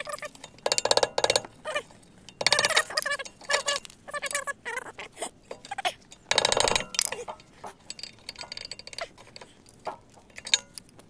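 Metal clinking and rattling from a rear brake caliper and hand tools being handled, in several short bursts of rapid clicks.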